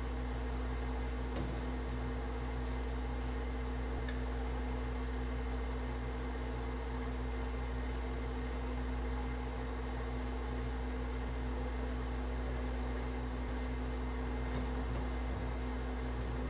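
Steady machine hum with several constant tones, from an unseen motor or appliance in the room. Now and then a faint metallic click from channel-lock pliers and a hand working a threaded gas fitting.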